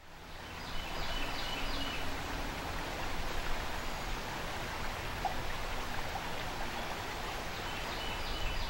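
Shallow creek flowing over a riffle of rocks: a steady rush of water.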